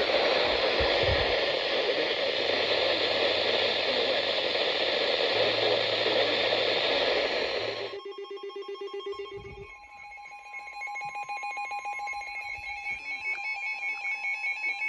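Steady hiss of radio static for about eight seconds, then it cuts off and an electronic emergency alert tone sounds: a two-tone signal pulsing rapidly, like a ringing telephone.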